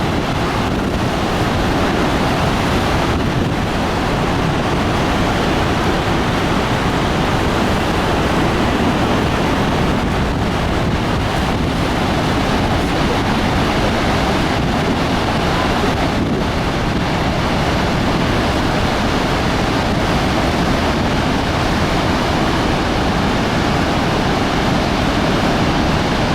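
Steady, loud rush of the Horseshoe Falls at Niagara, an even, unbroken noise of a great mass of water pouring down.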